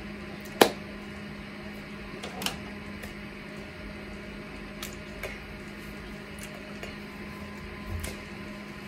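Room tone: a steady low hum with a few short, faint clicks, the sharpest about half a second in.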